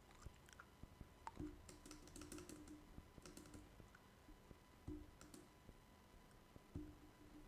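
Faint computer keyboard keystrokes in short irregular runs, with a faint steady tone underneath.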